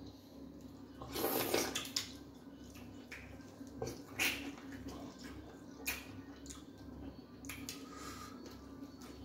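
Wet eating sounds from fufu and tilapia in light soup being eaten by hand: a few short squelching, slurping bursts, the loudest about a second in.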